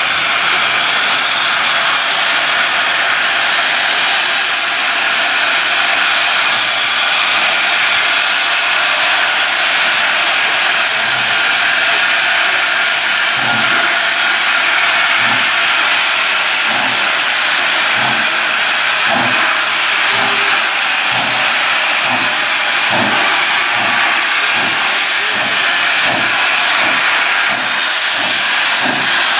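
Steam locomotive letting off a loud, steady hiss of escaping steam. From about twelve seconds in, a slow, even beat of low chuffs, a little over one a second, comes in under the hiss.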